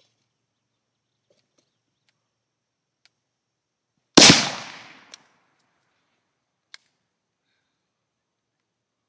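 A single rifle shot from an Arsenal AK-74 in 5.45x39mm about four seconds in, a sharp crack that trails off over about a second. Two faint clicks follow, one about a second after the shot and one near seven seconds.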